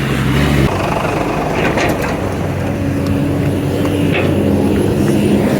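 A heavy vehicle's engine running close by, with street traffic noise; its hum shifts in pitch a few times.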